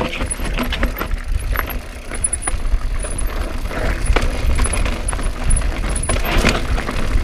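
Mountain bike riding a rough dirt singletrack: wind buffeting the camera microphone, with the tyres crunching over gravel and the chain and frame rattling over bumps in many short clicks.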